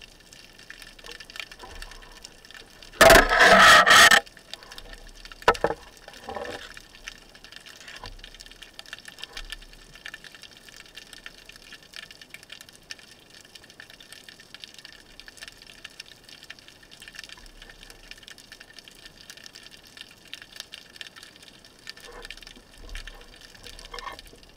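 Underwater sound heard by a camera on a speargun: a faint steady hiss with scattered small clicks, and a loud rush of water and air bubbles about three seconds in lasting about a second, followed by two shorter rushes.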